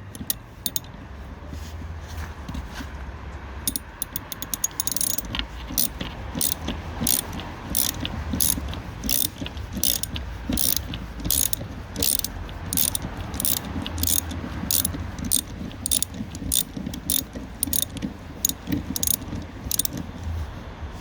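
Socket ratchet wrench clicking steadily, about two clicks a second with a quick flurry a few seconds in, as a 13 mm socket undoes the nut holding a car's rear wiper arm.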